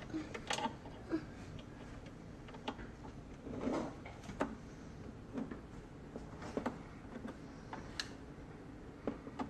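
Phillips screwdriver working screws out of a Keurig coffee maker's plastic housing: scattered light clicks and ticks, with a short scrape about four seconds in.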